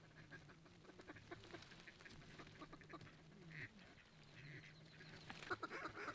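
A flock of ducks calling, many short calls overlapping, growing busier and louder near the end.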